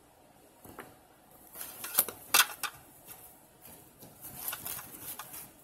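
Boiled crawfish being peeled and eaten close to the microphone: sharp cracks and clicks of shell, loudest about two seconds in, then lighter crackling.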